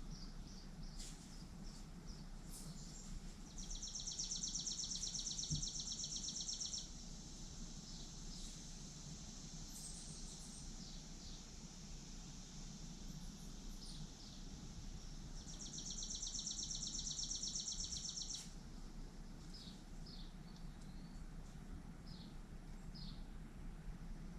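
Backyard birds calling: short high chirps scattered throughout, and twice a high, rapid, dry trill lasting about three seconds, over a steady low outdoor rumble.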